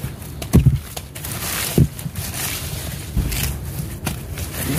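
A gloved hand rummaging through discarded produce: lettuce rustling and apples being shifted, with several dull thumps over a steady background rush.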